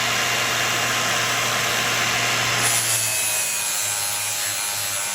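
Angle grinder with an abrasive pad running steadily, grinding the cutting edge of a steel lawn mower blade. About three seconds in, the grinding gets hissier and the motor hum starts to pulse as the pad works the edge.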